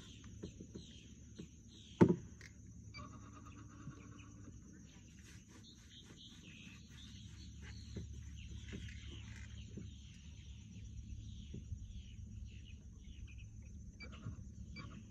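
Birds chirping over a steady high-pitched hum, with a single sharp knock about two seconds in, the loudest sound.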